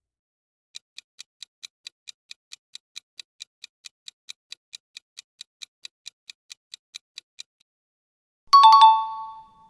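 Countdown-timer sound effect: a clock-like ticking at about four to five ticks a second for some six and a half seconds. It stops, and a moment later a bright ding chime sounds and rings out, marking that time is up.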